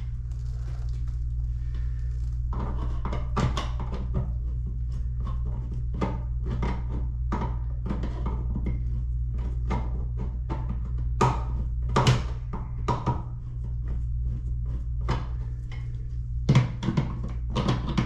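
Scattered small clicks, taps and knocks of a screwdriver, screws and a rocker switch being handled at a wall switch box, over a steady low hum.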